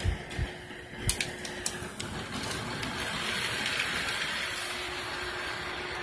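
Model train running on sectional track: a small electric locomotive motor hums and whirs with the rolling of the wheels on the rails. A few sharp clicks come about a second in, and the whir swells through the middle as the cars pass close.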